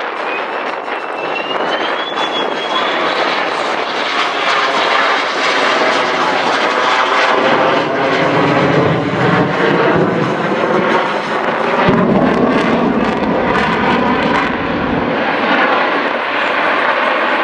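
Aircraft engine noise from a plane flying by: a loud, steady rush that builds over the first few seconds and holds, with a deeper rumble joining partway through.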